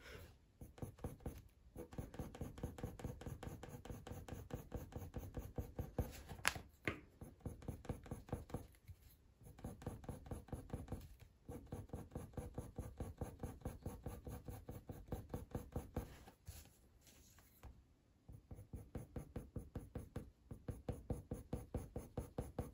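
Coloured pencil scratching on hot press watercolour paper in quick short shading strokes, about four or five a second, in runs broken by brief pauses, with one sharp tick about six and a half seconds in. The pencil is pressed hard into an already heavily layered surface that will barely take more pigment.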